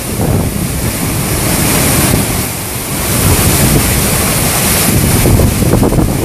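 Hurricane-force wind gusting through trees with driving rain, heavily buffeting the microphone in a loud, steady rush.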